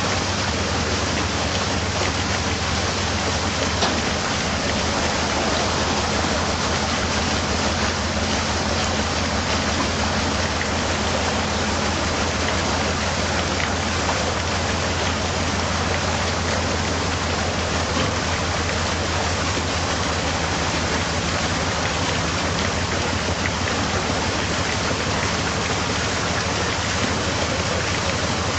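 Narrowboat's diesel engine running slowly, a low steady hum, as the boat moves forward through the lock, under a loud steady hiss of rushing water.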